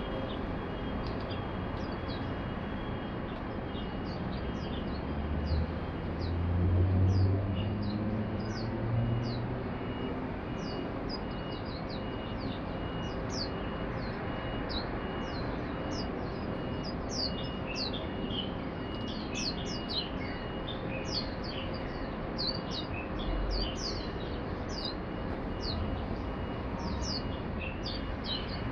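A flock of Swinhoe's white-eyes giving many short, high chirps that grow busier in the second half. A low rumble swells and fades about five to ten seconds in.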